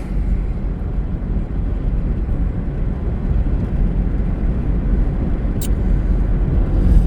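Steady low rumble of road and engine noise inside a moving car's cabin, with a single short click about five and a half seconds in.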